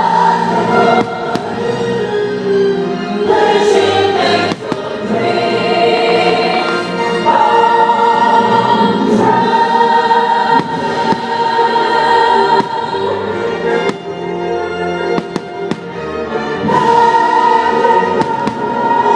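Fireworks show soundtrack of a choir singing long held notes over orchestral music, with fireworks bursts banging at scattered moments throughout.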